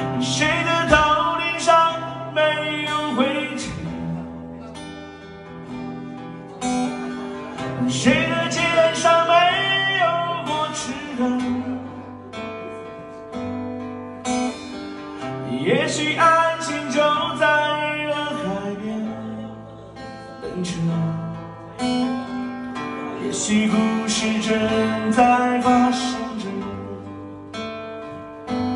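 Background music: a Chinese folk song with strummed acoustic guitar, with a voice singing in places.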